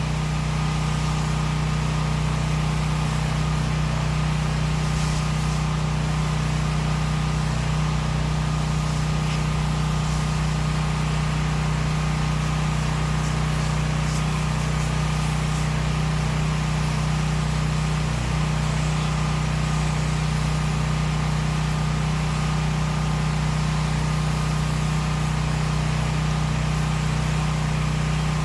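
Pressure washer engine running steadily at an even speed, with a steady hiss over it.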